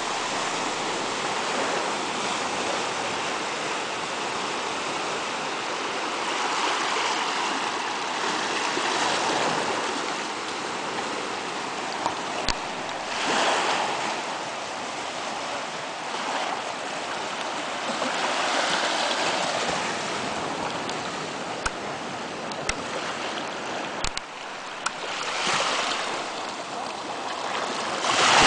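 Shallow surf washing up a sandy beach and draining back, swelling every few seconds. A few short clicks are heard in the middle stretch.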